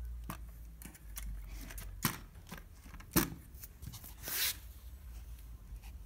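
Olympia SM2 portable typewriter being tipped over and handled on a table: scattered clicks and knocks of its metal body and parts, the two loudest about two and three seconds in, then a brief scrape a little after four seconds.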